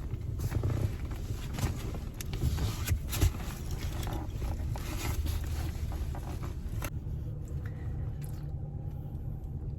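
Low, steady vehicle rumble, with scattered rustling and light knocks from someone moving about inside the van.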